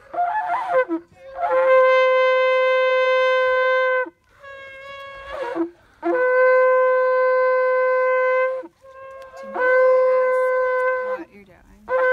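Long twisted shofar blown in three held, steady blasts of a couple of seconds each, with short wavering, sputtering notes at their starts and between them.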